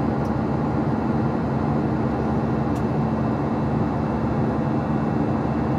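Airbus A321-200 cabin noise in climb, heard near the wing: the CFMI CFM56-5B engines at climb thrust give a steady engine buzz over an even rush of air, with a steady low droning tone.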